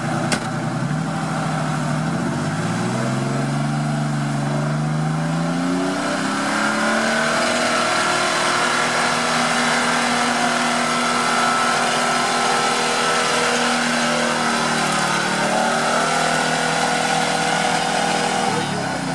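GAZ-69 jeep's engine revving hard under load as it ploughs through deep mud, the pitch climbing in steps over the first several seconds, held high, then dropping back near the end.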